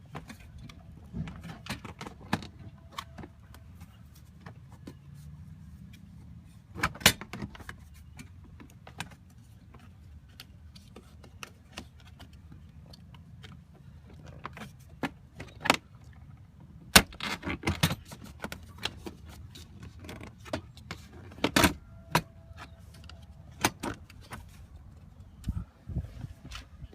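Scattered plastic clicks, knocks and rattles as dashboard trim panels, retaining clips and screws are worked loose by hand and with a screwdriver, busiest in the second half, over a low steady hum.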